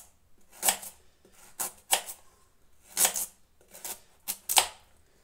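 Kitchen knife slicing a carrot into rounds on a wooden cutting board: a series of sharp cuts at an uneven pace.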